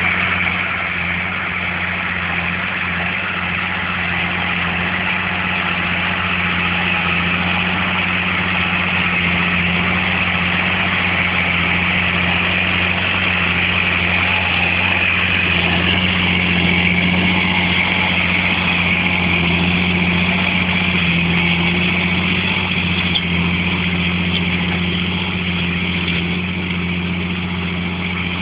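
Large diesel tractor engine running steadily under load while pulling a five-furrow plough, a constant low drone with no change in revs.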